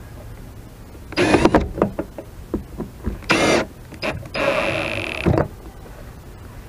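Cordless drill driving screws into a boat-deck hinge: its motor runs in three short bursts, the last and longest about a second, with sharp clicks and knocks in between.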